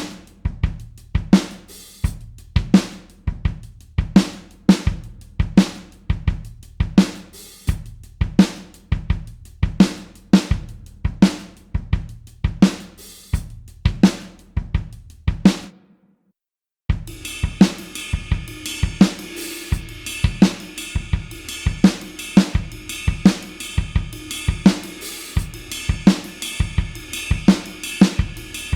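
Rock drum kit playing a steady beat of kick, snare and hi-hat, which stops about halfway through. After about a second of silence a second rock beat starts, with a continuous cymbal wash over the kick and snare.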